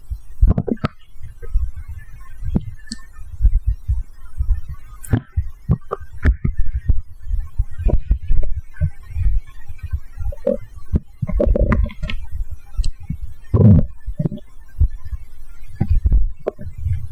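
Stomach gurgling and rumbling after a can of cola, over a steady low throbbing. Several louder gurgles come in the second half.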